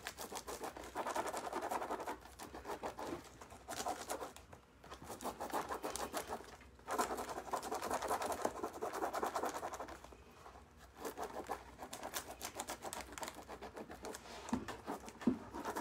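Hands rubbing a rub-on decor transfer down onto a textured lampshade. The rubbing is scratchy and comes in bouts of a second or two, with short pauses between strokes.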